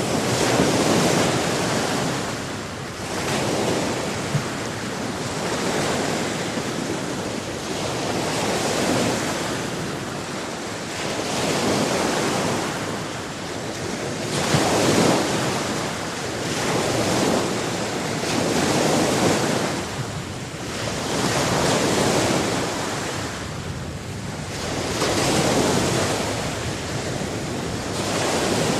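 Ocean waves breaking on a shore, the surf swelling and ebbing every two to three seconds in a steady rush.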